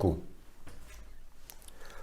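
Quiet room tone with a few faint clicks as a small saucepan is picked up and handled.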